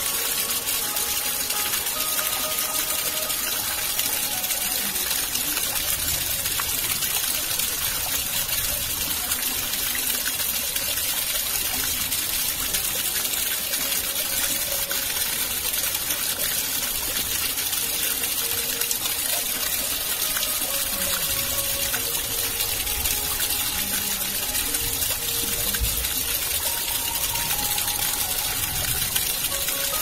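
Fast-flowing water gushing in a steady, unbroken rush.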